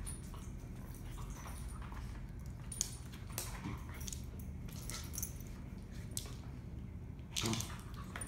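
Two dogs play-wrestling on a mat over a wooden floor: scattered scuffling and claw clicks, with a short, louder dog sound near the end.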